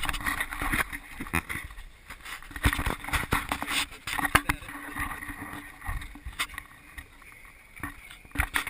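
Irregular knocks and rustling from footsteps through long grass and handling of a body-worn action camera.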